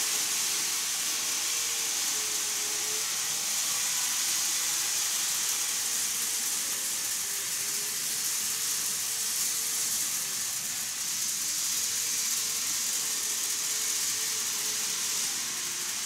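N-gauge model trains running on a layout: a steady hiss with a faint hum that wavers slowly in pitch.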